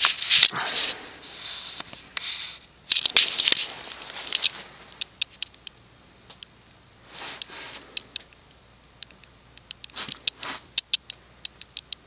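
Encon 52-inch ceiling fan built by King of Fans, switched off and coasting down, its blades still turning. Scattered light ticks and clicks throughout, with a few soft rushing bursts near the start, about three seconds in, about seven seconds in and about ten seconds in.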